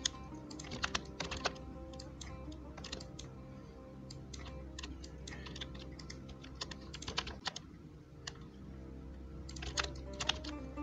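Computer keyboard keystrokes clicking at an irregular pace, over quiet background music.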